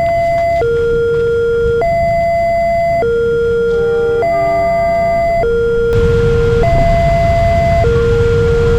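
Railway level-crossing warning siren sounding a two-tone alarm, switching between a lower and a higher steady tone about every second and a bit, over a low rumble that gets louder about six seconds in.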